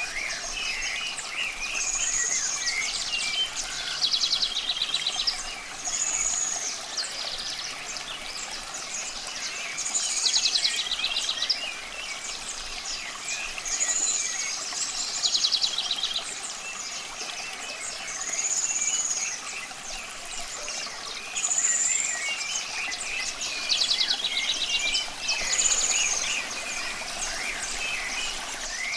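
Birds singing over a faint wash of running water. One bird repeats a short phrase every few seconds, a high whistled note and a quick trill, among many softer chirps.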